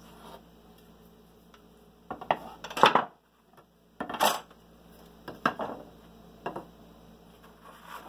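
Wooden boards knocking and clattering as they are lifted off a drying print and stacked on a pile: several sharp knocks, the loudest about three seconds in.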